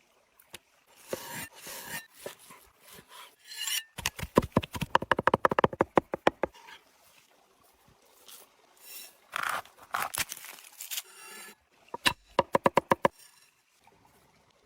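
Food preparation by hand: scraping and rubbing, and two quick runs of sharp knife chops on a wooden cutting board, the longer run about four seconds in and a shorter one near the end.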